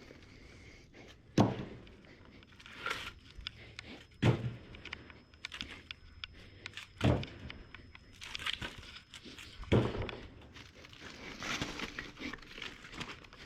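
Firewood being handled: a heavy wooden thunk about every three seconds, with crackling and rustling of wood and debris between the thunks.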